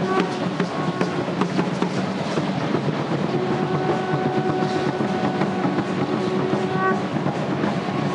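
Dense clattering of many dancers' seed-pod ankle rattles (ayoyotes) shaking with their steps. A long steady note is held for a few seconds in the middle.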